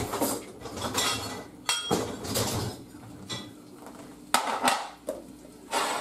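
Cooking spoon knocking and scraping against a saucepan of frying sausage pieces, and cookware being set down on the counter: a string of sharp clatters, the loudest about four and a half seconds in.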